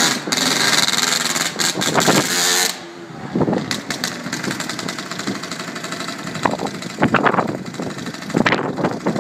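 Aprilia RS50's 50cc two-stroke engine running at high revs, then dropping back suddenly about three seconds in to a quieter, lower running with several short rises in revs.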